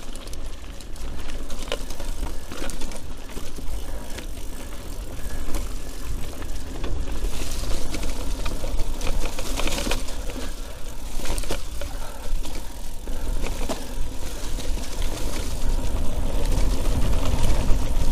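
Mountain bike being ridden along a wet, muddy forest trail over roots, heard through an action camera: a continuous rumble of wind and vibration on the microphone, with tyres rolling through the mud and the bike rattling and knocking over bumps. The rumble grows stronger near the end.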